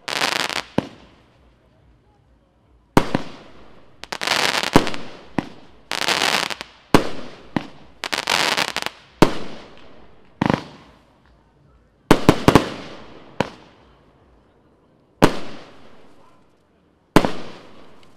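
Evolution Fireworks 'Golden Age' firework battery firing shot after shot: a series of hissing, crackling bursts punctuated by sharp bangs, one every second or two, with brief pauses around two and fourteen seconds in.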